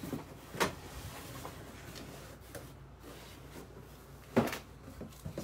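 Cardboard boxes being handled and shifted, with two knocks: one about half a second in and a louder one about four seconds in.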